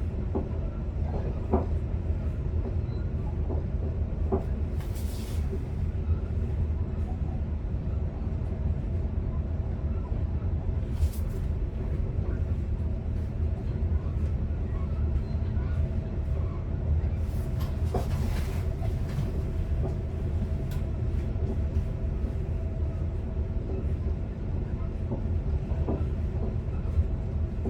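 Commuter electric train running, heard from inside the driver's cab: a steady low rumble with scattered small clicks and knocks, and a few short hisses about five, eleven and eighteen seconds in.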